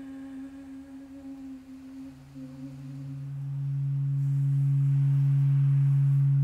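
Sustained, nearly pure electronic tones: a held mid-pitched tone, joined about two seconds in by a lower steady tone that swells slowly until it is much the loudest.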